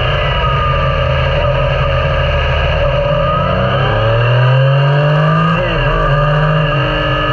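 Yamaha Niken's three-cylinder engine under way, revs climbing from about three seconds in, dropping briefly a little past halfway, then climbing again.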